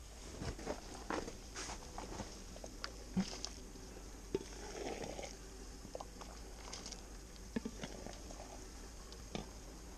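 Light, irregular clicks and knocks of metal mugs and camp cookware being handled while making coffee, with a brief rushing sound about five seconds in.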